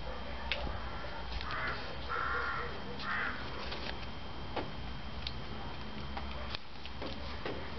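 Three harsh bird calls in quick succession, crow-like caws, a little over a second in, over steady outdoor background noise with a few faint clicks.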